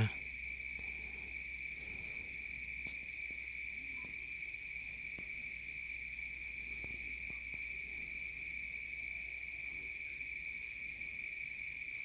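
Insects, likely crickets, chirring steadily at one high pitch.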